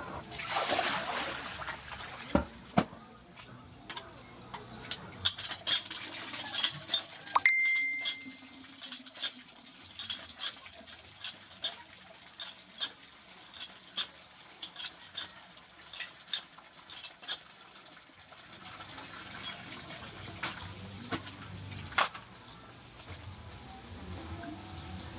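Hand laundry at a cast-iron hand water pump: water splashing and sloshing in a plastic basin as clothes are scrubbed, and water gushing from the pump spout into the basin while the handle is worked, with many short sharp clanks and knocks.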